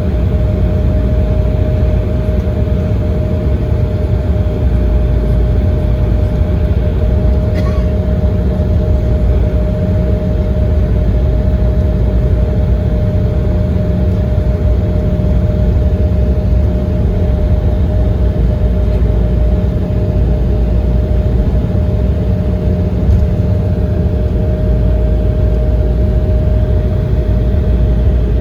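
Cabin noise inside an Embraer ERJ-170 airliner: the General Electric CF34 turbofans' steady drone with a low rumble and a constant mid-pitched hum. A faint click is heard about seven seconds in.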